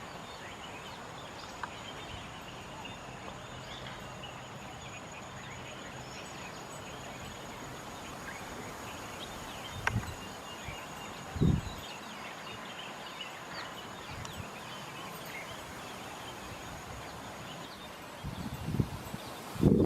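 Rural outdoor ambience with faint, scattered high bird or insect chirps over a steady background hiss, broken by two brief low thumps about halfway through and a few more near the end.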